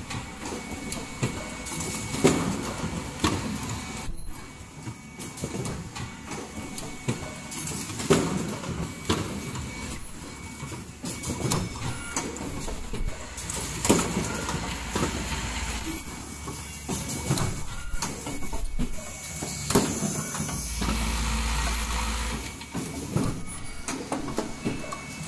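Automatic cup mask production line running: its pneumatic stations and indexing chain conveyor clatter steadily. A sharp knock comes about every two seconds as the line cycles.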